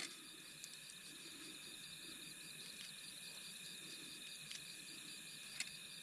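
Night insects chirping: a faint, steady chorus with an evenly pulsing trill running through it. A light click about half a second in and another near the end.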